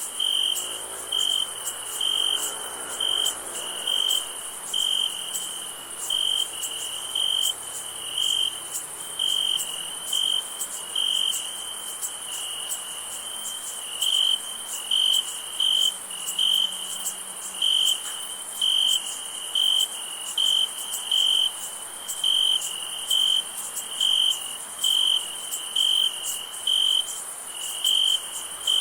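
Night insect chorus: a cricket chirping in regular pulses, a little more than one a second, over a steady high-pitched insect trill.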